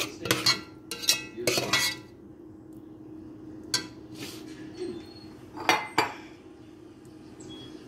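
Utensil clinking and scraping against a glass baking dish while macaroni and cheese is stirred and spread in it: a quick run of clinks in the first two seconds, then a few scattered clinks.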